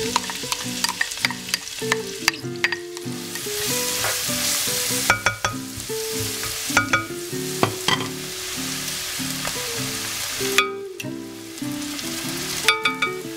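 Chopped onions sizzling as they fry in hot oil in a non-stick pot, with a spatula stirring them and clicking and scraping against the pot. A soft melody of stepping notes plays underneath.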